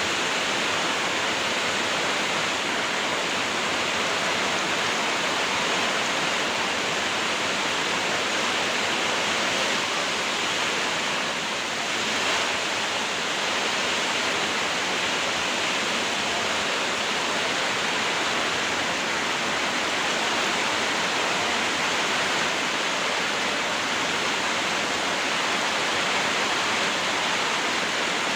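Heavy rain pouring steadily in a storm: a dense, even hiss that does not let up.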